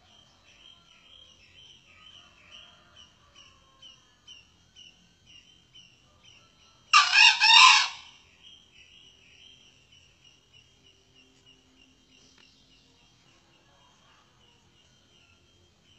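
A male junglefowl crows once, loudly, for about a second, about halfway through. Underneath, a faint insect chirps in an even rhythm.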